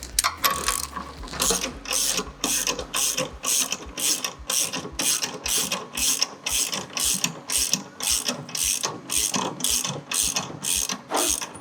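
Small motorcycle jack being lowered under the front of the bike, working with a steady ratcheting rhythm of about two strokes a second.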